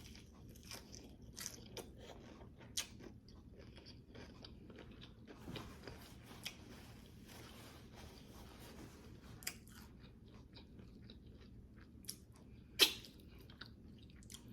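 Biting and chewing a crunchy low-carb taco shell close to the microphone: scattered crisp crackles of the shell breaking between quieter chewing, with one loud crunch near the end.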